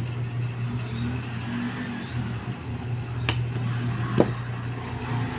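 Two sharp little clicks a little under a second apart past the middle, from a circuit board and its small transistors being handled and set down on a workbench, over a steady low hum.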